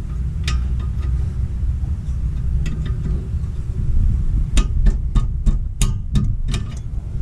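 Ratchet wrench clicking as it loosens the lower brake caliper bolt, a few single clicks at first, then a quick run of about three or four clicks a second for a couple of seconds near the end. A steady low rumble runs underneath.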